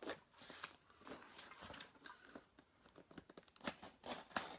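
Cardboard parcel being torn and crunched open by hand: irregular crackles, rips and rustles of cardboard and tape, coming thicker and sharper near the end.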